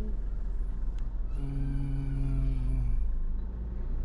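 A man's voice humming one long, level 'mmm' for about a second and a half while eating a cheese-filled waffle, over a steady low hum. There is a brief click about a second in.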